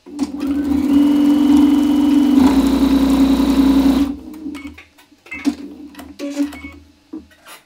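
Electric sewing machine stitching steadily for about four seconds, its sound growing fuller about halfway through, then stopping, followed by a few short stitch runs and clicks.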